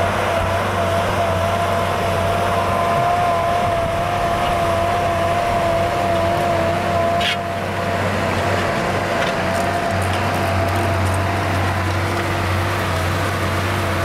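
Tractor engine running steadily under load while pulling a disc harrow through the soil, a low drone with a steady high whine over it. The sound dips briefly about seven seconds in.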